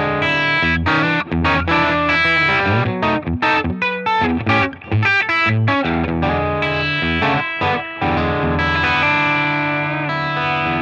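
Telecaster-style electric guitar played through an Oldfield Amplifiers Model 6420 amplifier: quick runs of notes and chords with short stops. About eight seconds in, a chord is left ringing and slowly fades.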